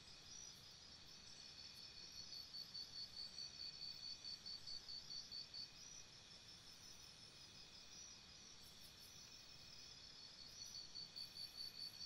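Faint jungle insect chorus: high-pitched, cricket-like trilling over a low ambient hiss. It chirps in quick pulses of about four a second, stops about halfway through, and resumes near the end.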